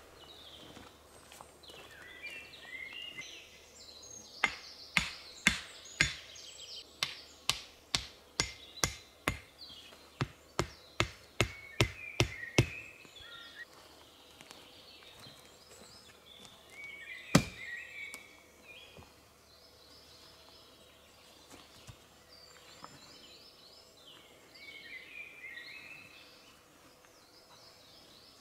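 A run of about twenty sharp hatchet blows, two to three a second, with one more, louder blow a few seconds later. Birds chirp in the background.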